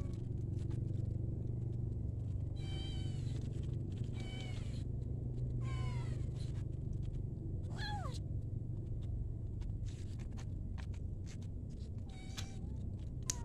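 A cat meowing about five times in short, high calls, some falling in pitch, over a steady low hum.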